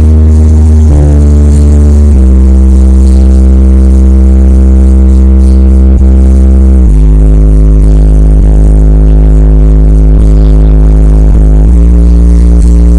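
Electronic DJ remix music mixed very loud for a speaker sound check, dominated by long held bass notes that shift to a new pitch every few seconds.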